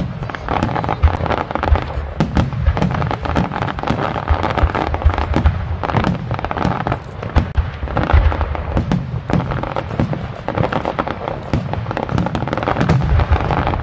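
Aerial firework shells bursting overhead, a dense, continuous run of booms and sharp pops.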